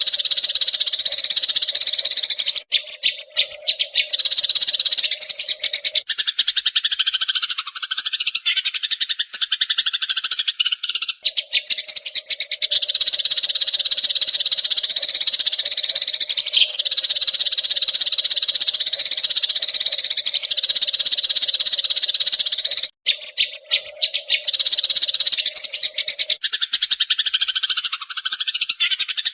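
Eurasian tree sparrows chirping in a dense, fast, continuous chatter, with brief breaks about 3 seconds in and again near 23 seconds.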